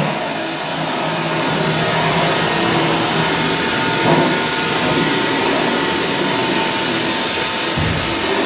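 Electronic noise music: a dense, steady wall of noise with a few faint held tones in it.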